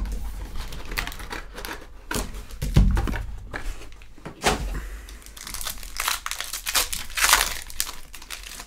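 Foil trading-card pack wrappers crinkling and tearing as the packs are handled and opened, in irregular crackly bursts, with a dull thump about three seconds in.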